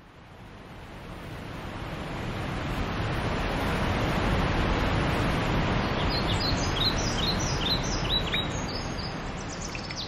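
A broad rushing noise swells up over the first few seconds and holds steady. From about six seconds in, birds chirp over it in quick, high, repeated notes.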